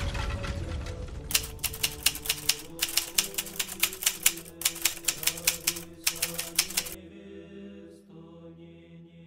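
Typewriter key clacks, a fast uneven run of strikes with a few short breaks, stopping about seven seconds in, over slow Gregorian chant with long held notes. In the first second the tail of an explosion's rumble dies away.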